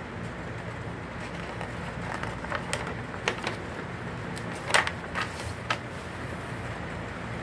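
Glossy magazine pages being turned and pressed flat: a run of crisp paper rustles and snaps in the middle, the loudest a little under five seconds in, over a steady low hum.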